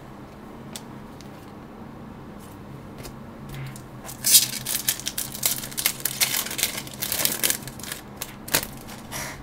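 A foil trading-card pack being torn open and its wrapper crinkled: a dense run of crackling starts about four seconds in and stops just before the end.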